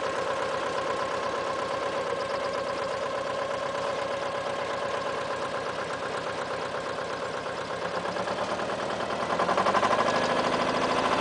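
AUSA 200 RMR minidumper's engine idling steadily, then speeding up and growing louder about nine and a half seconds in as the throttle is raised to work the backhoe arm.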